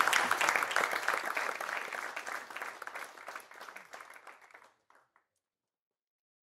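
Audience applauding, a dense patter of many hands clapping that fades away over about five seconds.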